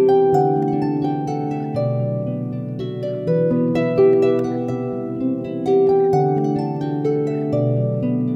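Background music: a melody of plucked string notes, harp-like, each note ringing on as the next begins.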